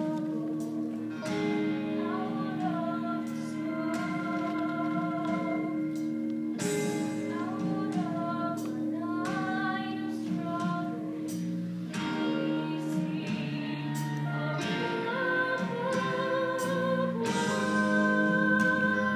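Woman singing a solo stage-musical song with vibrato over steady held accompaniment chords, in phrases with short breaths between them.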